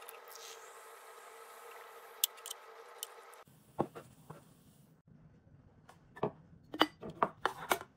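Aluminium can of Coca-Cola Zero Sugar snapping open with a sharp click, then cola pouring and fizzing into a glass tumbler; the pouring stops abruptly about three and a half seconds in. After that come several short knocks and clinks as the glass and can are handled on the tabletop.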